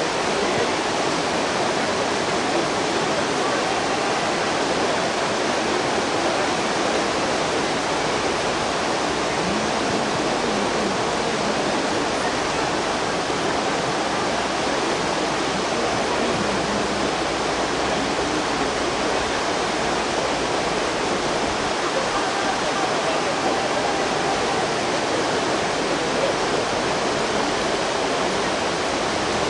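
Steady rush of whitewater rapids on a kayak slalom course, an even noise that does not change in level.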